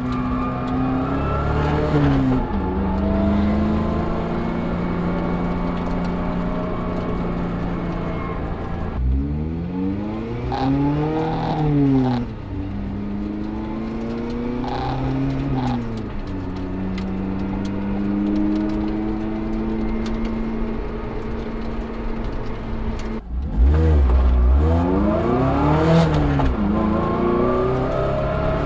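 ND2 Mazda MX-5 Miata's four-cylinder engine and drivetrain heard from the trunk while driving, revs climbing and falling several times through acceleration and easing off, with a brief sudden dip before the loudest stretch near the end. Differential gear whine and grittiness come through the stiffer JBR differential mounts.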